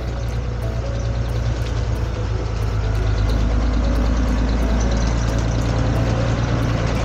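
A motor vehicle running, a steady rumble with road noise that grows gradually louder, with soft background music underneath.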